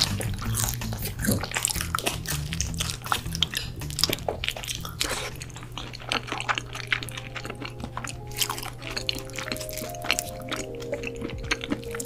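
Close-miked eating sounds of a person biting and chewing pizza: a dense run of wet mouth clicks and smacks, thinning out in the second half. Background music plays underneath with a steady low bass, and a melody comes in about halfway through.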